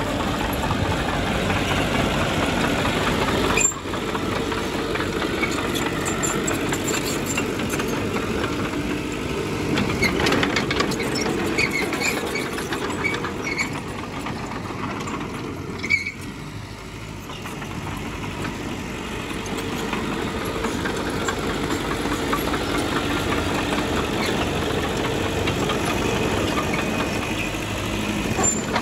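Diesel engine of earthmoving machinery running steadily. It breaks off sharply a few seconds in, eases down near the middle, then builds again, with a few short high squeaks in between.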